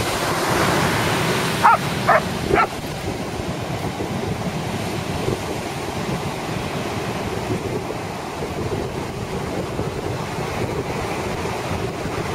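Surf breaking steadily on the shore, with wind on the microphone. About two seconds in, a dog barks three times in quick succession.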